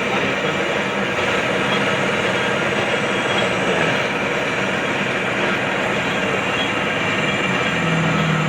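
Metalworking machine running steadily, a continuous mechanical drone with fixed tones, as in machining a pulley wheel.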